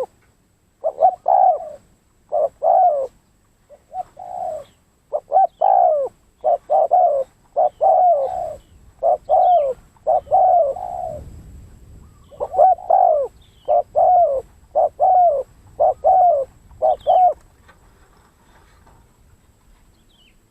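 Spotted dove cooing: repeated phrases of short, low coo notes, the bird falling silent about three seconds before the end.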